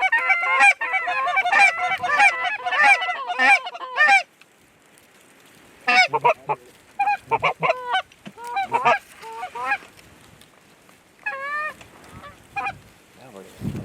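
Canada geese honking: a dense run of many overlapping honks for about four seconds that stops abruptly, then scattered single honks.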